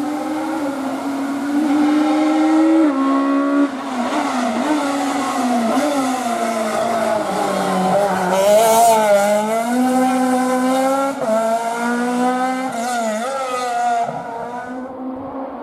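Peugeot 306 Maxi rally car's four-cylinder engine revving hard, its pitch climbing and dropping sharply at gear changes, then swinging up and down as the driver works the throttle, with a burst of tyre noise about halfway through.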